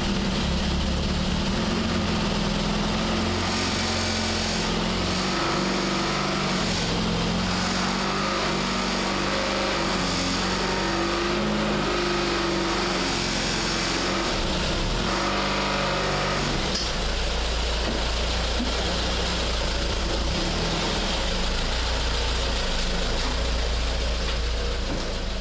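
1966 Triumph Spitfire's 1147cc four-cylinder engine running shortly after a cold start, its note shifting up and down for a while, then settling into a steadier low rumble about two-thirds of the way through.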